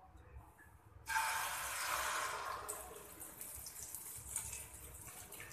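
Egg, coconut and onion batter sizzling as it is poured into hot oil in a frying pan: the sizzle starts suddenly about a second in, is loudest for the first second or two, then slowly dies down to a faint crackle.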